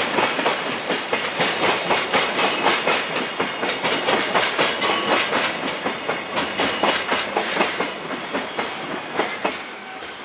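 Container flatcars of a freight train clattering over rail joints in a rapid, regular clickety-clack as the last wagons pass, fading away over the last few seconds as the train moves off.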